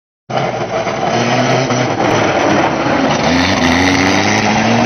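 Engines of stripped-out hatchback banger race cars running and revving as they drive around the track. One engine's pitch climbs about three seconds in. The sound cuts in suddenly just after the start.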